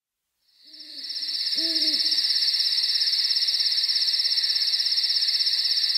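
Night-time ambience: a steady, fast-pulsing chirr of crickets fades in, and an owl hoots twice in the first two seconds.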